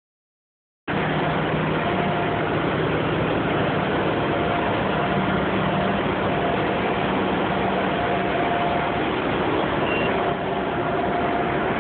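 City bus engine idling, a steady hum and rumble that sets in about a second in.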